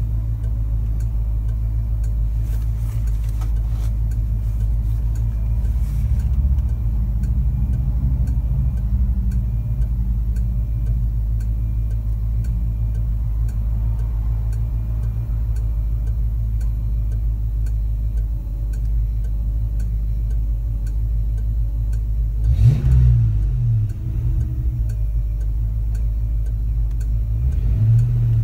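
Fox-body Ford Mustang's 5.0 V8 idling, heard from inside the cabin, with a steady ticking like a turn-signal flasher. About three quarters of the way through the engine gives one quick rev, and near the end it starts to rev up as the car pulls away.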